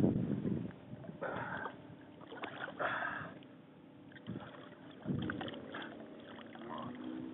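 Water sloshing and splashing in short irregular bursts as a paddlefish is held by hand at the water's surface beside the boat and released.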